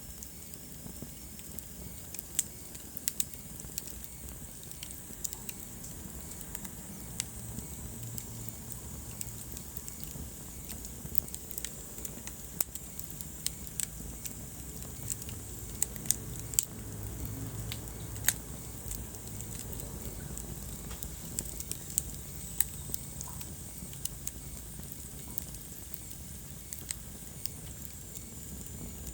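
Wood fire burning in a fireplace, with a soft steady rumble and irregular crackles and sharp pops.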